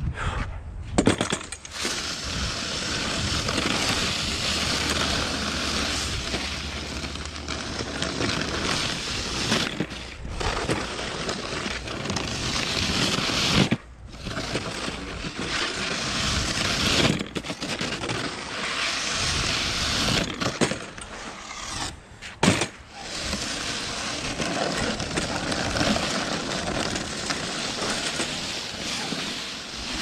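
Snowcaster wheeled snow pusher's plastic blade scraping snow across a concrete driveway in long pushes, with short pauses between them. A few sharp knocks stand out: about a second in, again around a third of the way through, and past the middle.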